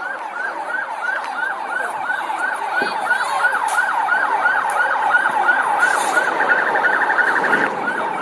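Police vehicle sirens in a fast yelp, rising sweeps about three a second, with a second siren overlapping underneath. Near the end a rapid beeping tone briefly joins in.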